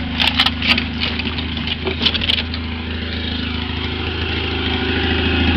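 Straight-piped Honda riding lawn mower engine running steadily, with a few sharp clicks and knocks in the first two seconds; the engine gets louder near the end.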